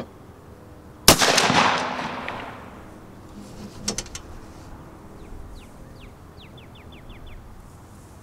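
A shotgun fires a single 3.5-inch Magnum 00 buckshot load about a second in, and the report echoes and fades over a second or so. A few sharp clicks follow about three seconds later. Near the end a bird chirps in a quick series of short falling notes.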